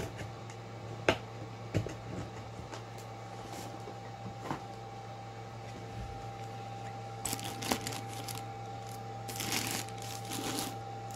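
Paper cards and plastic sleeves handled on a desk: a few light taps and clicks early on, then rustling of a stack of printed cards being flicked and shuffled in the hands near the end. A steady low hum runs underneath.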